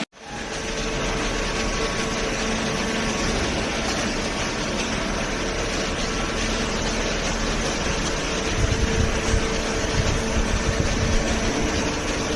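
Large hydraulic cardboard baler running: a steady mechanical hum with a faint steady whine, and low rumbling swells from about eight seconds in.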